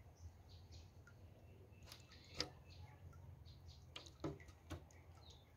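Quiet hand-washing of caladium seeds in water in an aluminium basin: a few sharp clicks and taps of fingers and seeds against the metal, the loudest about two and a half seconds in, over faint chirps.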